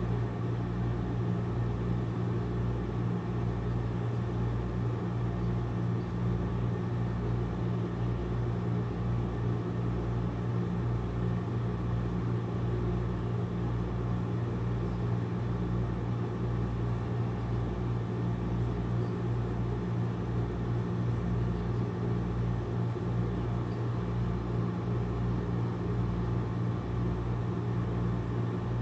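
Domestic cat purring steadily and close up while being stroked, a low continuous rumble that swells and fades in an even rhythm with each breath.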